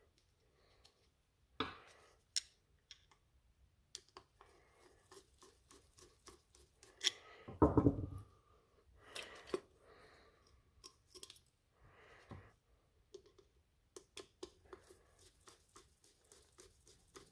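Scattered small metal clicks and glove rustling as new screws with lock washers are started into the halves of a tractor carburetor by hand and with a screwdriver. A louder knock and rustle comes about seven to eight seconds in.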